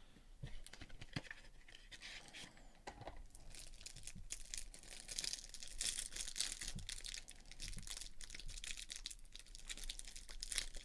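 Light clicks of cards and card sleeves being handled. From about four seconds in, a trading card pack's clear plastic wrapper crinkles and tears as it is peeled open.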